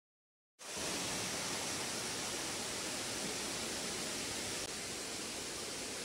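Water of a rocky stream rushing over boulders below a waterfall: a steady, even rush that cuts in suddenly about half a second in, after dead silence.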